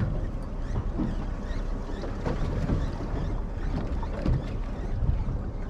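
Steady wind and water noise aboard a small fishing boat at sea.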